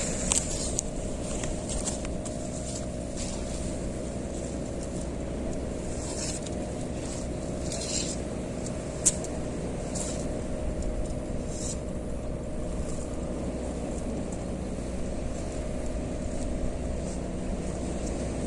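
An engine running steadily at an even speed, with a few short clicks over it and one sharper click about halfway through.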